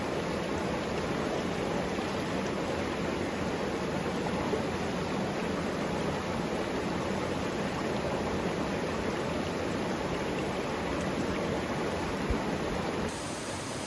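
Steady rush of a shallow rocky creek and small waterfall, running water with no let-up.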